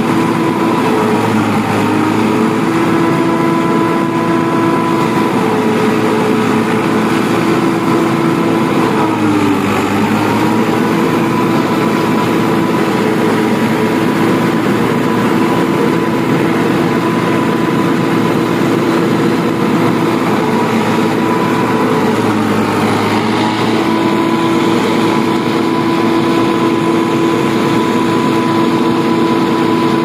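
Tractor engine driving a Celmak stationary silage chopper, running steadily with the hum of the spinning cutter. Its pitch sags briefly twice, about nine and twenty-two seconds in, then recovers, as maize stalks are fed in and chopped.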